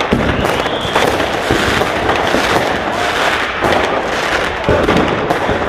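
Fireworks going off continuously: a dense, unbroken crackle of bangs and pops, one after another.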